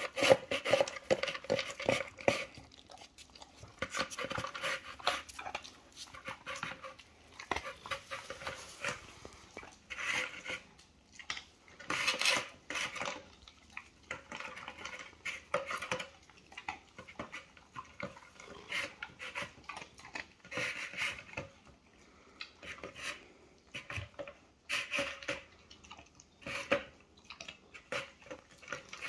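Chocolate Labrador retriever eating dry kibble from a plastic slow feeder bowl. Kibble rattles and clicks against the plastic ridges as she noses it out and chews, in irregular bursts every second or two.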